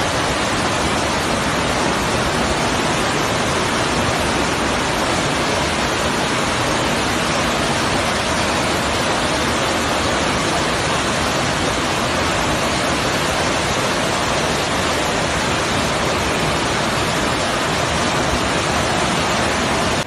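Floodwater rushing in a loud, steady torrent, a dense even roar with no rhythm or pitch.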